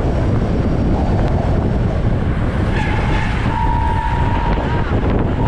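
Heavy wind buffeting the microphone of a camera on a road bike travelling at around 30 mph, a steady rushing rumble. About three seconds in, a steady high-pitched tone sounds for roughly two seconds.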